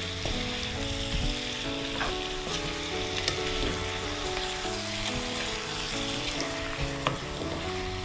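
Chicken pieces sizzling in hot oil in a non-stick kadai as they are stirred with a spatula, with a few light clicks of the spatula against the pan. A soft melody of background music plays underneath.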